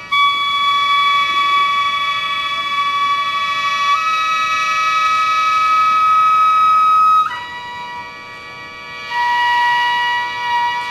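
Gagaku, Japanese court music: wind instruments holding long notes over a sustained chord. The melody steps up about four seconds in, then drops and grows quieter a little past seven seconds before swelling again near nine.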